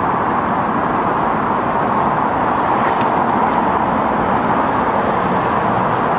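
Steady road traffic noise from cars moving along a busy street.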